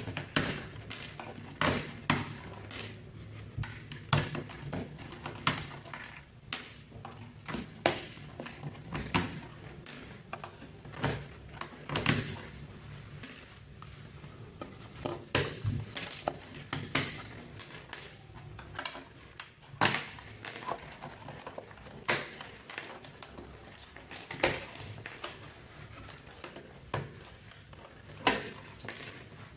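Mechanical keyboard keycaps clicking and clattering: sharp, irregular plastic clicks, roughly one or two a second, as the keycaps are worked off the board and handled.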